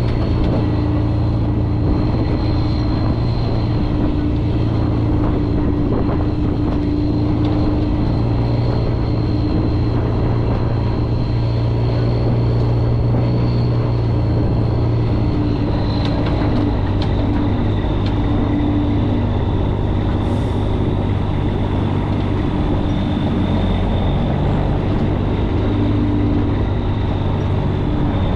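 Heavy wrecker's diesel engine running steadily under load while towing, with a steady drone and a high whine; the engine pitch drops a step about halfway through.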